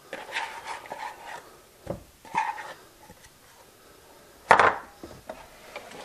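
Thinly sliced onion tipped from a plastic bowl into a bowl of sliced cucumbers, with soft rustling and a few light taps. About four and a half seconds in comes a single sharp knock, the loudest sound here.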